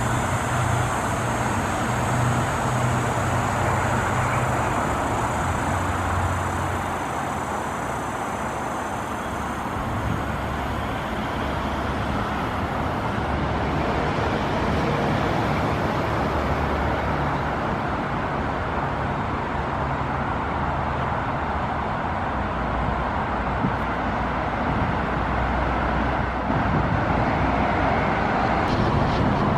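Steady traffic noise from a busy expressway: a continuous rush of tyres and engines. For about the first ten seconds a thin high-pitched whine sits over it.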